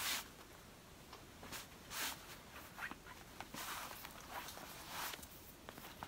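Faint, scattered rustling and scraping strokes of a Gucci GG Marmont leather belt being drawn through the belt loops of denim jeans, with its metal buckle being handled and fastened.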